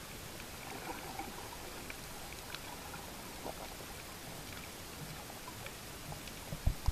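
Underwater ambience recorded just below the surface over a coral reef: a steady hiss with faint, scattered small clicks. A few low thumps come near the end.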